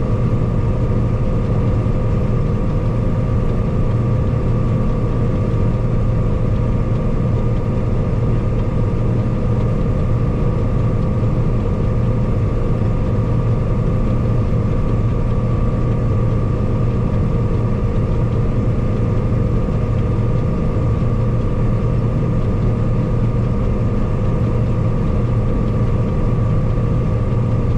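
Combine harvester running steadily, its engine and threshing drive giving an even drone with several steady hums.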